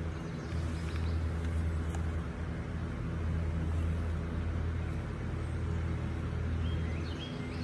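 Steady low electric hum of a box fan's motor running, with faint rustling of packaging as parts are lifted from the box. A bird chirps briefly near the end.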